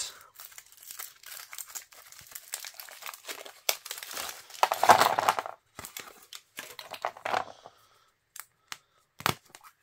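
Foil wrapper crinkling and tearing as it is peeled off a Yowie chocolate egg, with the hollow chocolate shell breaking apart, loudest about five seconds in. Near the end there are a few light clicks as the plastic toy capsule is handled.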